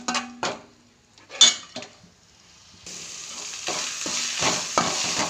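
Garam masala paste frying in oil in a metal pan while it is stirred. A few scrapes and clinks come in the first couple of seconds, then a steady sizzle starts about three seconds in, with stirring strokes over it. The paste is being fried until its raw smell is gone.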